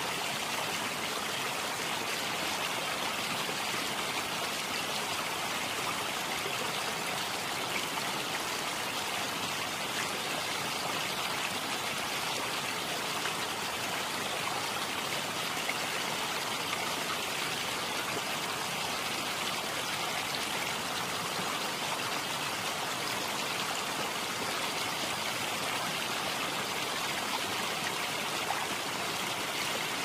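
Waterfall: a steady, unbroken rush of water, hissy rather than deep, with no change over the whole stretch.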